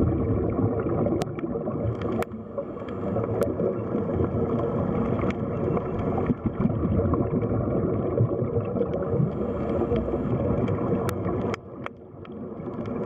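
Aquarium water making a steady rushing, churning noise, with a few sharp clicks and a brief dip in level near the end.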